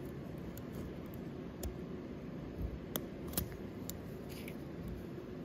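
A few small, sharp metal clicks as the SIG MPX's recoil spring guide rods and their retainer are handled, the loudest about three and a half seconds in, over a steady low background hum.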